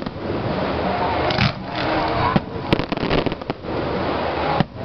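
Aerial fireworks show: shells bursting in a rapid, overlapping run of bangs and crackles, with one sharp crack a little before three seconds in.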